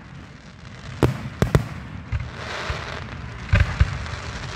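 Aerial firework shells bursting overhead: a sharp bang about a second in, a quick pair just after, and a cluster of bangs near the end, with a spell of hissing in between.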